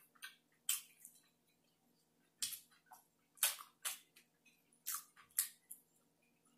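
Close-up wet mouth sounds of chewing food: about half a dozen short smacks and clicks, spaced irregularly.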